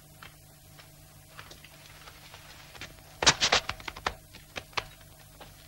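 Scuffle as soldiers grab a man: scattered clicks and knocks, with a quick run of about four loud sharp knocks about three seconds in.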